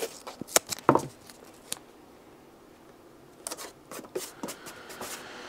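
Sheet of card being handled and pressed down by hand over a model engine's cylinder head: light paper crackles and taps in short bunches, with a quieter pause of about two seconds in the middle.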